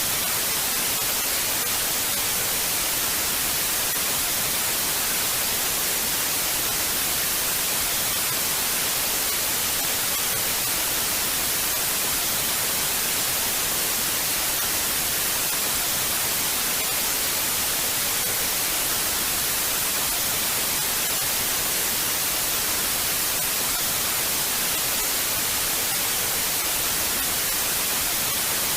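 Television static: a steady, even hiss of white noise, strongest in the treble, with no change or interruption.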